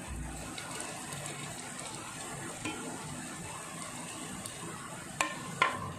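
Onions, spring onions and coriander sizzling steadily in hot oil in a metal pan as chopped tomatoes go in. Near the end a metal spoon knocks twice against the pan.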